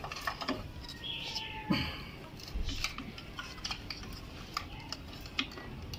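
Hands tucking a motorcycle's wiring and a plastic electrical box back into the side compartment: scattered light clicks, taps and rustles of wires and plastic parts being handled.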